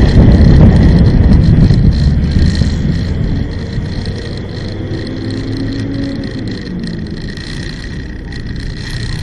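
Vehicle engine and road rumble while driving along a city street. It is loud at first and eases off about three and a half seconds in, then carries on as a steadier, quieter rumble with a faint engine hum that wavers in pitch.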